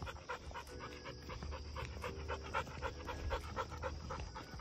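A black Labrador retriever panting on a walk in quick, even breaths, about four a second.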